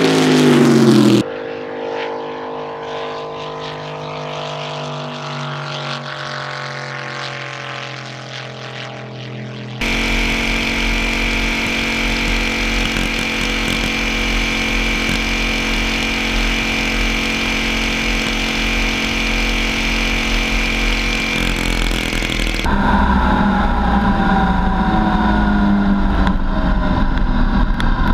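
The V8 engine of the Viking T6 racing lawn mower, running flat out. It sweeps past with its pitch dropping in the first second, then fades into the distance. About ten seconds in, the sound turns to close up and loud: the engine holds steady high revs under heavy wind rush. Near the end the revs fall as the mower slows.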